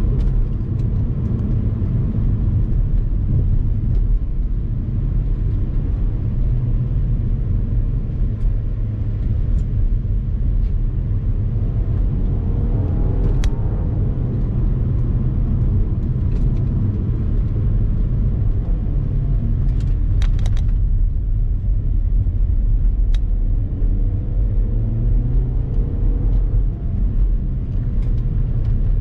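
Car being driven on a winding road: a steady low rumble of road and wind noise, with the engine note rising and falling twice. A few sharp clicks come through around the middle.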